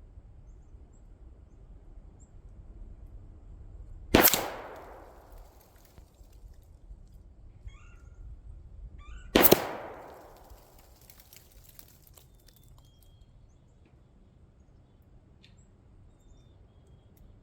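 Two single gunshots about five seconds apart, each dying away over a second or so.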